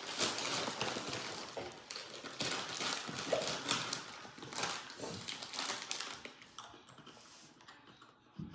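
Crunchy cracker crisps being chewed close to the microphone, irregular crunching that dies away about six and a half seconds in.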